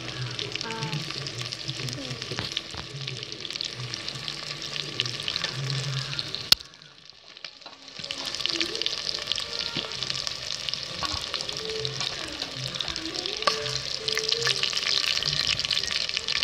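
Marinated chicken 65 pieces deep-frying in hot oil in a pot, a steady dense crackling sizzle. The sizzle drops out for about a second midway, right after a sharp click, then returns.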